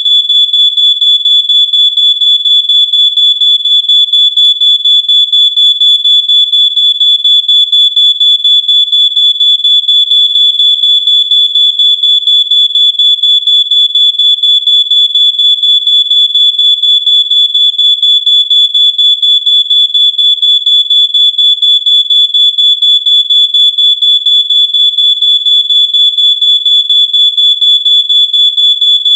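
Smoke alarm sounding: a loud, piercing high-pitched tone pulsing rapidly and evenly, several times a second, without a break.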